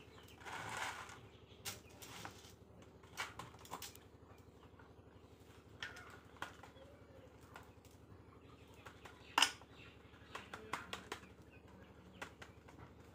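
Fresh green leaves rustling and crackling as they are folded and handled, with scattered soft clicks and one sharper click about nine seconds in.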